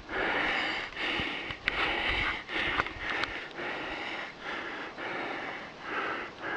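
A man breathing hard, in and out about once a second, worn out from climbing a snowy slope.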